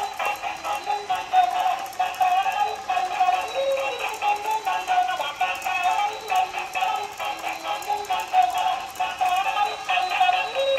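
Electronic tune playing from a battery-powered dancing robot toy's small built-in speaker, thin and without bass.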